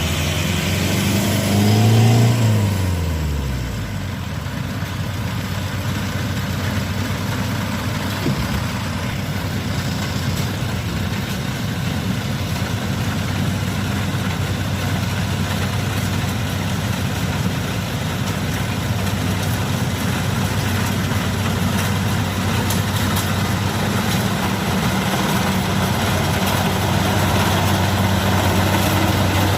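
Diesel engine of rice-harvesting machinery working in a muddy field, running steadily under load. About two seconds in, its revs rise and fall back.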